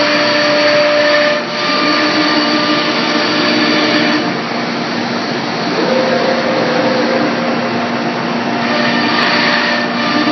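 Komo CNC router running: a loud, steady machine noise with several whining tones that shift in pitch a few times as the machine changes speed.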